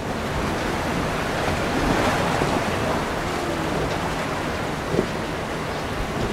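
Waves and surf rushing, with wind buffeting the microphone, and a brief thump about five seconds in.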